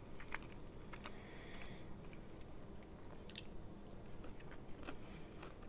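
A person eating roasted garlic Italian-cut green beans from a metal fork: faint scattered clicks of the fork at the dish, then biting and chewing.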